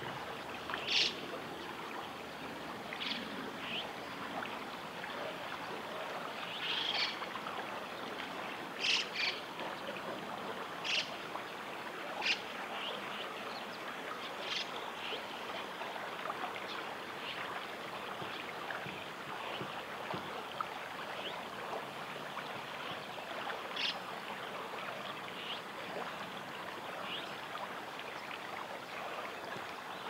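Steady rush of a flowing stream, with short, high bird chirps now and then, most of them in the first half and fewer later.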